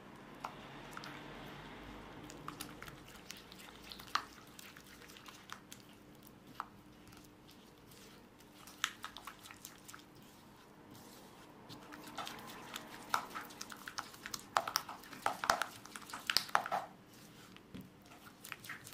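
Silicone spatula stirring and squelching through a sticky butter, sugar and egg batter in a ceramic bowl, with scattered wet clicks that come thick and fast from about twelve seconds in.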